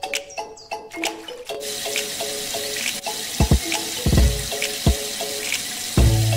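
Water spraying from a thin hose onto a mud-covered toy tractor, a steady hiss that begins about a second and a half in. A light background tune with repeating notes and a few low beats plays along.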